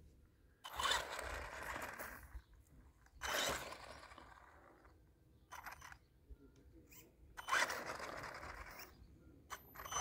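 Traxxas E-Revo brushless RC truck driven in short throttle bursts over paving stones: motor whine and tyres scrabbling on the stone, in three main bursts of about a second each with quieter gaps between.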